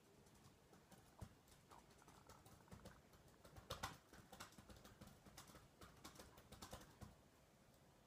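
Faint, scattered light clicks and scrapes of something touching the recording phone, thickest around the middle, over near-silent room tone.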